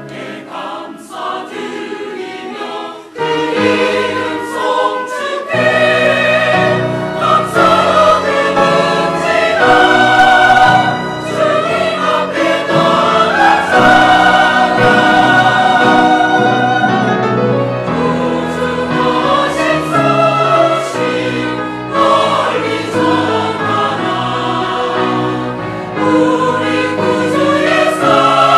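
Church choir singing a Christmas anthem with accompaniment; the opening bars are quieter, and the full choir comes in loud about five seconds in.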